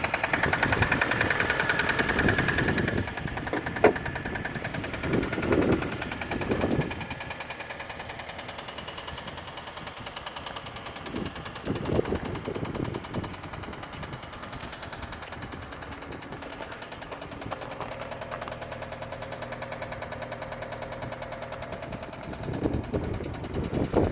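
Hyundai NF Sonata engine running with a rapid, fast-repeating knock, loudest in the first few seconds: the sound of a failed engine.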